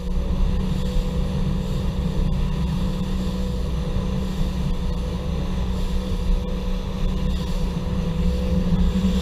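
Fishing boat's engine running steadily at planing speed: an even hum over a low rumble, with wind noise on the microphone.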